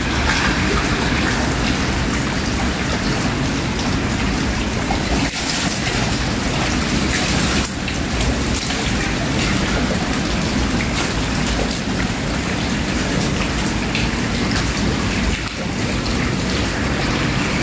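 Steady rain-like hiss and splatter of falling water.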